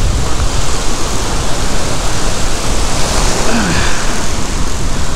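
Loud, steady rush of waves breaking and washing up the beach, mixed with an uneven low rumble of wind on the microphone.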